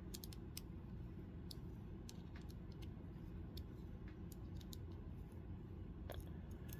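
Faint, scattered small clicks of a T6 Torx driver and its loose screws being worked out of a folding knife's handle, a dozen or so light ticks at irregular intervals.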